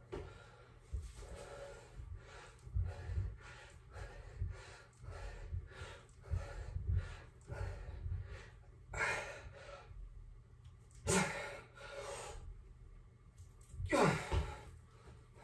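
A man breathing hard from the exertion of a set of dips: quick panting breaths, about two to three a second, then three louder gasping breaths in the second half.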